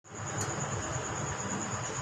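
An insect trilling steadily on one high pitch, typical of a cricket, over a low background rumble.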